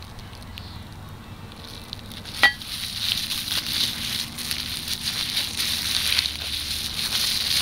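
Bubble wrap and plastic wrapping crinkling and rustling as they are pulled off a knife, louder from about two and a half seconds in. Just before that comes one sharp click with a brief ringing tone.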